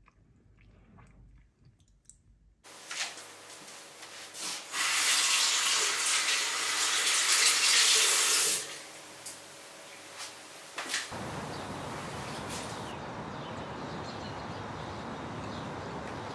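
Bathroom washbasin tap running for about four seconds, then shut off abruptly, with small knocks and clicks around it.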